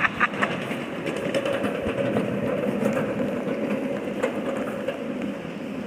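Scale live-steam locomotive train running along the track. A quick, even run of exhaust chuffs fades out just after the start, leaving a steady rolling rumble with a held hum.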